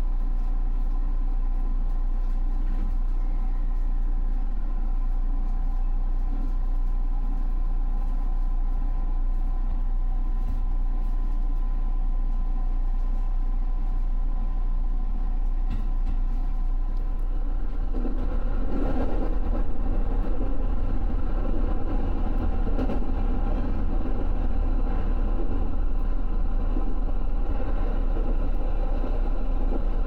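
Electric commuter train running, heard from its front cab: a steady low rumble of wheels and traction motors as it pulls away from a station. The rumble grows louder and rougher about eighteen seconds in as the train gathers speed.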